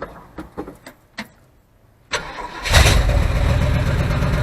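A few light knocks and clicks, then a carbureted truck engine is cranked by its starter about two seconds in and fires right up within a fraction of a second, settling into a steady idle. This is a start after the truck has sat for a day.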